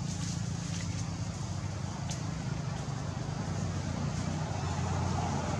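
Steady low rumble of a distant engine, with a faint high click about two seconds in.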